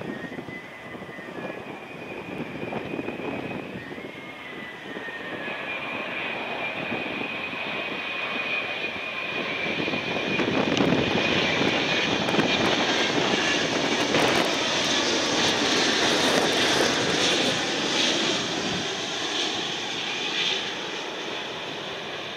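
Boeing 787-10 airliner on final approach, its Rolls-Royce Trent 1000 engines at approach power. A jet rumble with a high fan whine grows louder as the plane nears, is loudest a little past halfway, and then eases.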